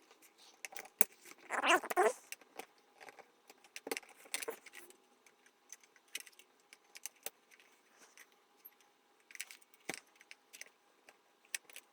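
Hands connecting the wires to a fuel pump: scattered small clicks and light rattles, with short rustles about two and four seconds in.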